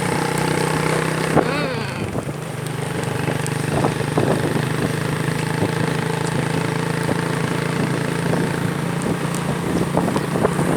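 Vehicle engine running steadily on the road, with road and wind noise. The engine eases off briefly about two seconds in, then picks back up.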